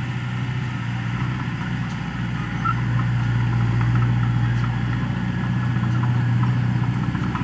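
Diesel engine of a small Komatsu crawler bulldozer running steadily as the machine works the dirt. It grows louder about three seconds in as the dozer comes forward.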